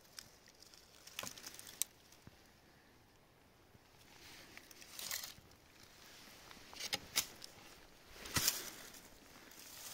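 Scattered brief rustles and scrapes in dry grass and leaf litter, from handling and moving around in the forest floor, the loudest near the end.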